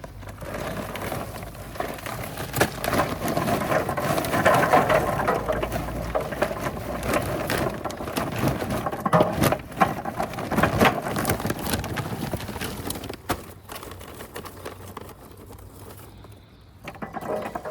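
Charcoal being poured into a barbecue grill: a dense clatter of lumps rattling and knocking against each other and the grill, which thins out and stops about thirteen seconds in.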